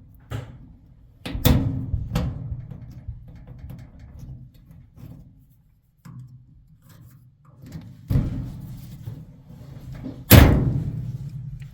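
Small hand tool prying and knocking at the retaining washer on a dryer drum support wheel's shaft: a few sharp metallic knocks and clanks with short ringing tails, the loudest near the end, over a low steady hum.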